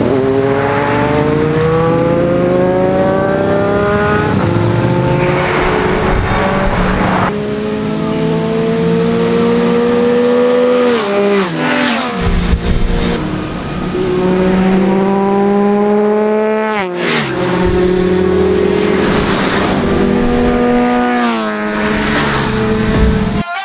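Sport motorcycle engines accelerating hard past, the note climbing again and again with a quick drop in pitch at each gear change, repeated several times as the bikes pass.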